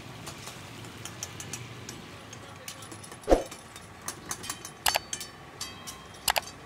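Chicken frying in oil in karahi woks over a wood fire, a steady sizzle, while metal ladles stir and clang against the woks. A dull knock a little over three seconds in is the loudest sound, followed by several sharp metal clangs with a short ringing.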